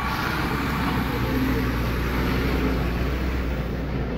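A motor vehicle's engine running steadily under a constant noisy rush, with a low even hum throughout.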